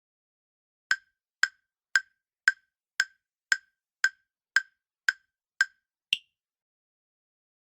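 Quiz countdown timer sound effect: ten even, clock-like ticks about two a second, then one higher-pitched click that ends the countdown.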